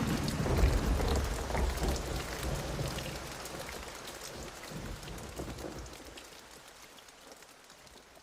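Rain pattering, with a low rumble of thunder in the first few seconds, the whole sound fading out gradually to near silence by the end.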